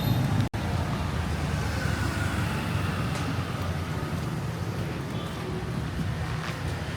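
Street traffic noise: a steady low hum of vehicles, briefly cut to silence about half a second in.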